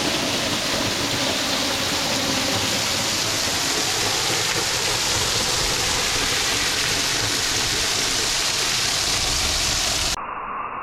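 Waterfall rushing: loud, steady noise of falling water. About ten seconds in it cuts abruptly to a duller, muffled rush.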